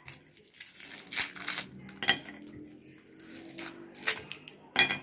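Lollipops and foil-wrapped hard candies being handled on a ceramic plate: wrappers crinkling, with a few sharp clicks of candy knocking against the plate, the loudest near the end.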